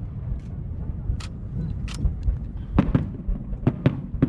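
Aerial fireworks bursting during a test firing: about half a dozen sharp bangs, coming more often in the second half, over a steady low rumble.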